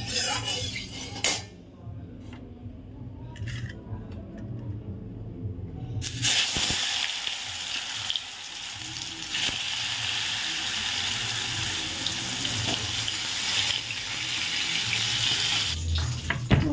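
Pointed gourd (patol) slices frying in hot oil in a kadai: a steady sizzle that starts suddenly about six seconds in and stops just before the end, after a quieter stretch with a few light clicks.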